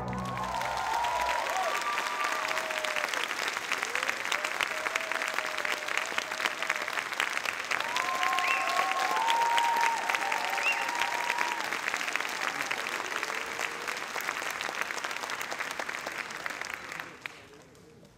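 Theatre audience applauding steadily, with a few voices cheering near the start and again about halfway through. The clapping fades out about a second before the end.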